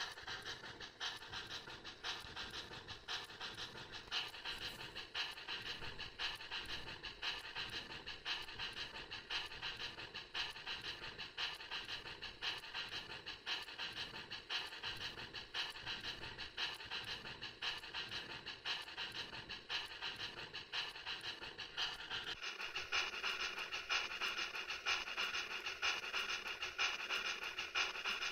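Model steam locomotive sound system playing rapid, rhythmic steam exhaust chuffs while the locomotive runs on rollers. The chuffing changes in tone a little past three-quarters of the way through.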